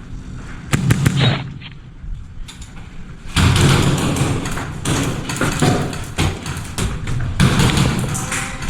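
Airsoft guns firing: a quick cluster of sharp pops about a second in, then from about three and a half seconds in a dense run of rapid pops mixed with thumps and rustling.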